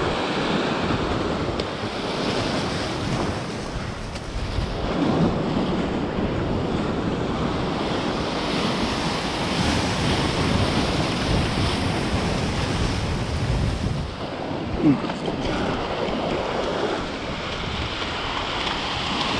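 Ocean swell surging and washing over a rock shelf, with wind buffeting the microphone. A short, louder pitched sound stands out about fifteen seconds in.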